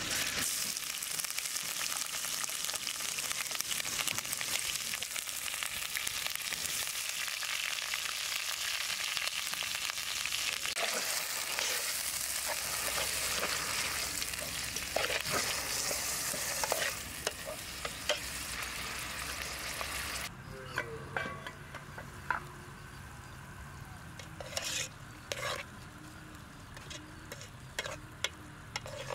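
Chopped onion sizzling as it fries in hot oil with whole spices in a metal pot. About twenty seconds in the sizzle drops away, leaving scattered scrapes and clicks of a plastic spatula stirring in the pot.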